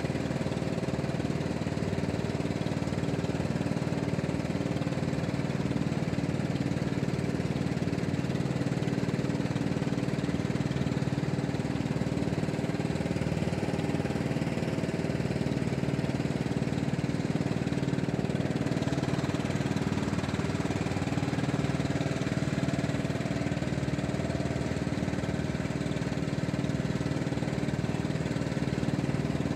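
Small engine of a fishing boat running steadily at constant speed, with an even hum.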